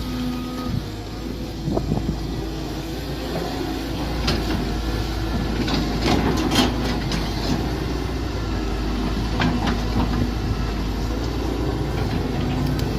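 Mini excavator engine running steadily while digging, with a scatter of sharp knocks through the middle of the stretch.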